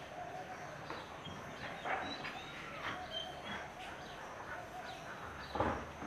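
Birds chirping in the background with short high calls, and a couple of brief knocks, the loudest one just before the end.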